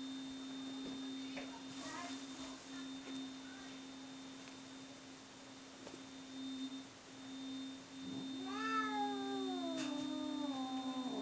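Domestic cats in a fighting standoff: a steady low tone runs underneath, and from about eight seconds in one cat lets out a long, wavering yowl that slides down in pitch.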